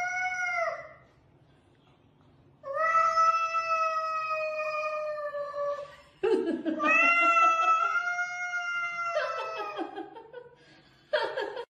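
A cat yowling in long, drawn-out wails: two long yowls of about three seconds each, with shorter ones before and after. It is a warning yowl during a swatting match between two cats.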